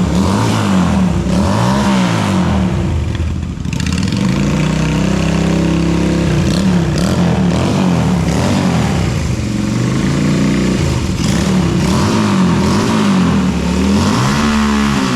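Yamaha Virago 250's small V-twin engine being revved in repeated throttle blips, the pitch rising and falling back toward idle each time. Its cam timing has just been set right, so it now has the uneven V-twin beat instead of sounding like a single-cylinder.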